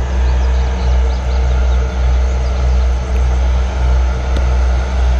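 Wind buffeting the microphone, a loud low rumble that swells and fades about once a second, over a steady low engine hum.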